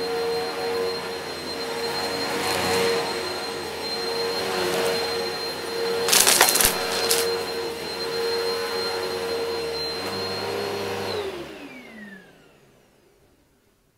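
Upright vacuum cleaner running on carpet, with a loud burst of crackling about six seconds in as debris is sucked up. About eleven seconds in it is switched off, and its motor whine falls in pitch and fades as it winds down.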